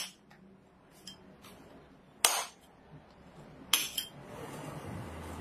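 Hammer striking a flat steel chisel driven down into the cells of an old lead-acid battery, giving sharp metallic clinks: a blow right at the start, a loud one a little past the middle, and a quick double blow soon after, with light taps between.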